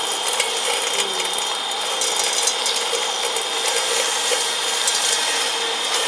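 Stainless-steel colloid mill running steadily with a constant high whine, with scattered rattling clicks as coffee beans fed in with oil are ground into paste.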